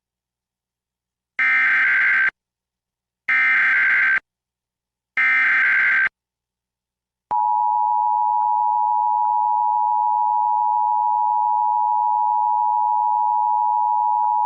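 Emergency Alert System test: three one-second bursts of SAME header data, a warbling digital screech, a second apart, then the EAS two-tone attention signal (853 and 960 Hz) starting about seven seconds in and held steady for about eight seconds, the standard opening of a Required Monthly Test.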